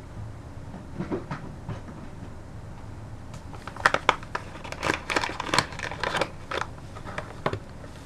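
A run of sharp clicks and crackles, starting about four seconds in and lasting a few seconds, from a paper sugar package being handled over the pot.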